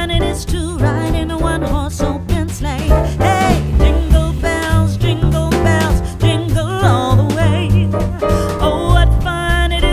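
Background music with a steady bass beat and a wavering melody line.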